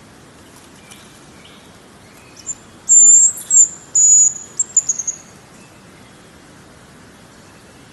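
Hazel grouse whistling its song: very high, thin whistles, a long note or two followed by a quick run of shorter notes, starting about two and a half seconds in and lasting under three seconds, over a faint steady hiss.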